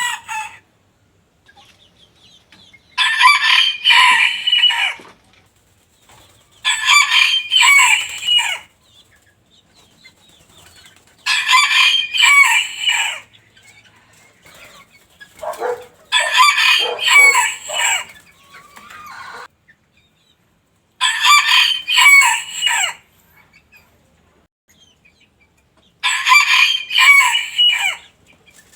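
Rooster crowing: six separate cock-a-doodle-doo calls, each about two seconds long, coming roughly every four to five seconds.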